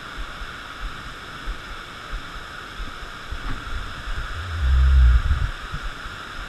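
Steady rushing of river water pouring over a low dam. About two-thirds of the way through, a low rumbling thump lasts about a second.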